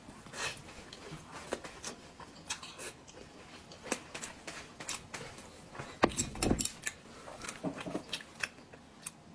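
Close-up mouth sounds of eating a thin pancake wrap: chewing and lip smacks, made up of many short, crisp clicks. A louder, dull thump comes about six seconds in.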